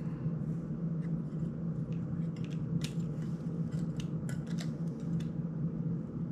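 Irregular light clicks and ticks of a GEPRC CineLog 35 FPV drone's plastic frame and small parts being worked by hand, most of them in the middle of the stretch, over a steady low hum.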